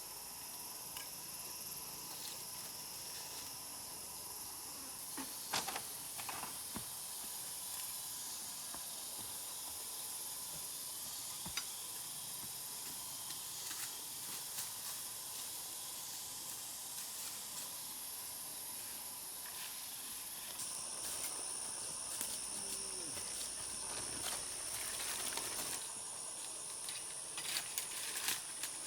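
A steady, high-pitched insect chorus, with a few light knocks and taps now and then; about two-thirds through, the insects' drone narrows to a single higher tone.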